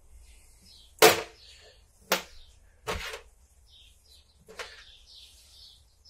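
Small brake master cylinder parts (piston, spring, rubber cup) set down one by one on a stainless steel workbench: four sharp clinks, the first, about a second in, the loudest.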